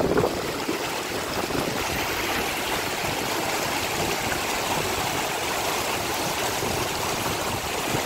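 Shallow, fast river flowing over rocks and gravel, heard close to the water surface: a steady splashing rush of water.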